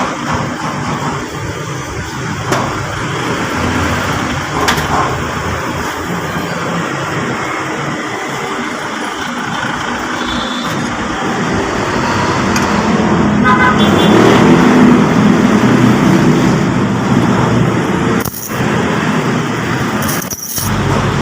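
Road vehicle engines running and passing, with traffic noise that swells louder about twelve seconds in.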